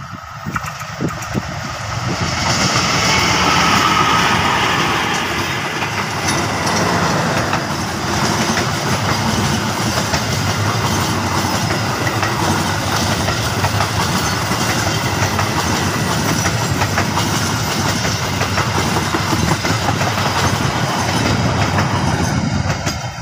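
Diesel-electric locomotive CC 201 83 18, a GE U18C, passes close by at speed, loudest about three to four seconds in. Its long rake of passenger carriages then rolls past with steady wheel-and-rail noise, which cuts off suddenly near the end.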